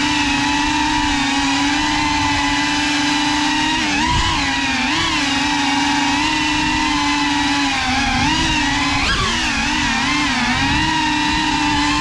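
GEPRC CineLog35 cinewhoop's brushless motors and ducted propellers whining steadily, the pitch dipping and swinging back up with throttle changes, most sharply around four and nine seconds in.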